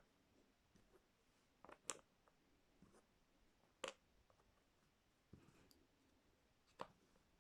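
Light, sharp clicks and taps of inset-frame puzzle pieces being handled and set into the frame, three louder ones spaced a couple of seconds apart among a few fainter ones.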